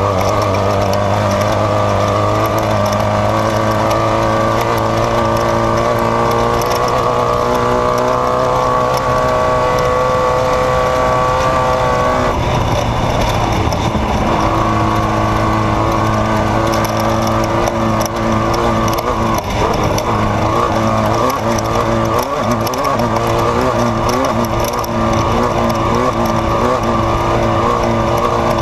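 Off-road race vehicle's engine running hard, its pitch climbing steadily for several seconds, then dropping suddenly about twelve seconds in and holding fairly steady after that.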